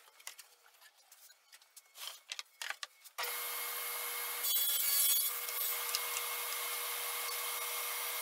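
A few light handling clicks, then a table saw starts about three seconds in and runs steadily with a whine. About a second later comes a short, louder stretch of the blade cutting wood as the crosscut sled is pushed through.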